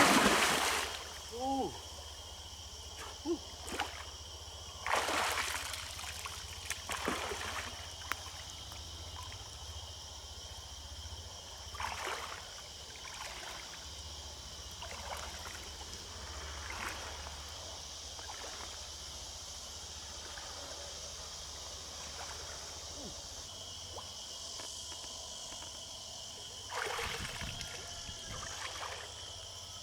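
Shallow river water trickling and sloshing, with a few louder splashes about five, twelve and twenty-seven seconds in, over a steady high hum of insects.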